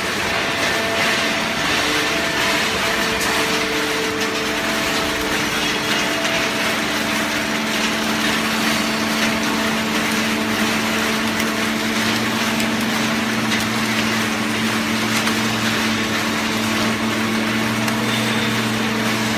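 Open-ended shredded-paper baler running: a steady machine hum under a dense rushing noise. A deeper hum joins about two-thirds of the way through.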